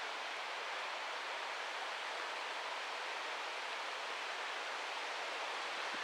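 A steady, even rushing noise with no distinct knocks, clicks or tones.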